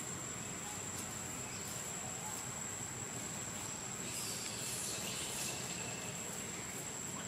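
Steady high-pitched insect drone over an even outdoor hiss, with a short spell of rustling about four seconds in.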